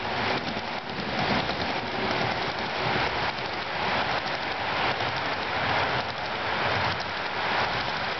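HO-scale model freight train rolling past close by, led by Athearn Penn Central SD45 diesels with boxcars behind: a steady, dense clatter of small metal wheels on the rails, full of fine clicks.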